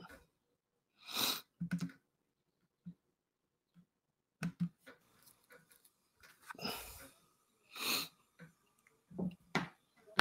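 A person's breaths and sniffs close to a microphone: several short, separate bursts with dead silence between them.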